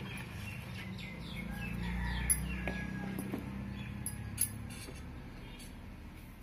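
Birds chirping in the background, with a quick run of short falling chirps a second or two in, over a low steady hum. A few sharp clicks come through as well.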